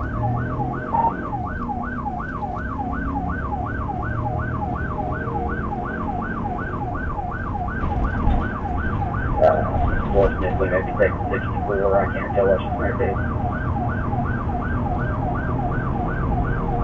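Police car siren on its fast yelp setting, rising and falling about three times a second, over the steady road and engine noise of the pursuing patrol car.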